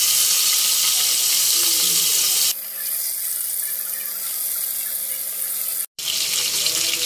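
Rohu fish pieces sizzling in hot oil in a frying pan, just after being laid in. About two and a half seconds in the sizzle drops to a quieter hiss over a steady low hum, breaks off for an instant near six seconds, then comes back loud.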